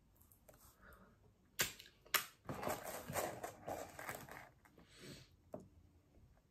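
Close-miked eating and food-handling noises: two sharp clicks about a second and a half in, then a couple of seconds of crackling as pizza is eaten and a plastic dip pot is handled, and one more click near the end.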